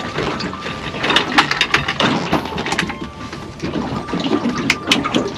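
Water splashing and sloshing, with a run of sharp clicks and knocks.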